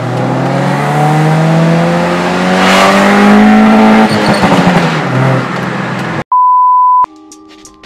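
Hyundai Accent's engine accelerating hard, heard from inside the cabin, its pitch rising steadily for about four seconds and then easing off. Near the end, a short steady high beep.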